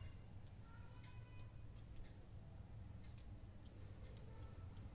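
Near silence: a low steady room hum with faint, irregular ticks scattered throughout.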